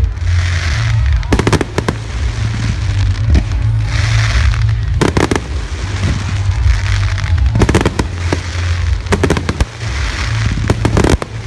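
Aerial fireworks display: shells bursting in repeated sharp booms, several followed by a few seconds of crackling.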